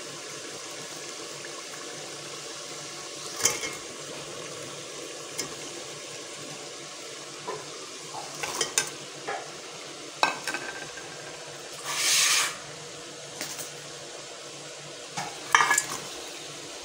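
Onion-tomato masala sizzling steadily in an aluminium degchi as fried lentil badiyan are added, with a metal ladle clinking and scraping against the pot several times. A louder half-second hiss comes about twelve seconds in.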